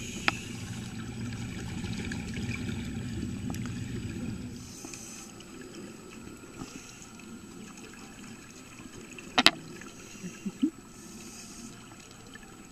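Underwater pool sound of scuba divers breathing through regulators: exhaled air bubbling up, rough and fairly loud for the first few seconds, then quieter. A single sharp click comes about nine and a half seconds in, followed by a few small pops.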